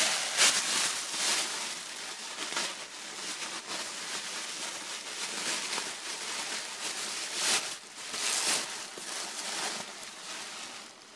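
Crumpled brown packing paper rustling and crinkling as it is handled inside a cardboard shipping box, with louder crinkles about half a second in and twice more near the end.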